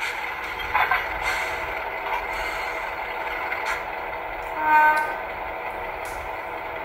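Sound decoder in a model GE 44-ton diesel switcher playing a steady diesel engine sound through its small speakers, with a couple of light clicks. A short horn toot comes about five seconds in and is the loudest moment.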